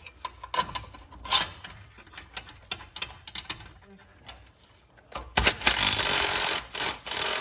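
Hands working metal parts and the drive belt under a lawn tractor: scattered light clicks and knocks, then about two seconds of loud, rapid rattling and scraping near the end that stops abruptly.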